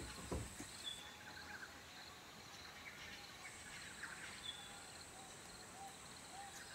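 Faint rainforest ambience: a steady high insect buzz with scattered short bird chirps. Two light knocks come right at the start.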